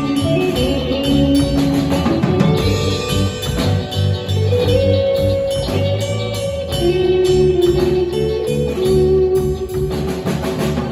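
Live rock band playing: a lead line of long, held notes that slide between pitches over bass guitar and drum kit.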